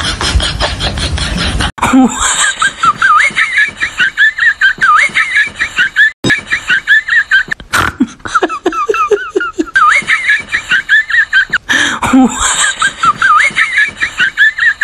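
High-pitched laughter sound effect, cut in abruptly about two seconds in and looped, with sharp breaks where the loop restarts.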